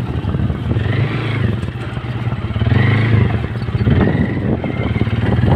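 Motorcycle engine running steadily while being ridden, heard from the rider's seat, with a few short high wavering tones over it.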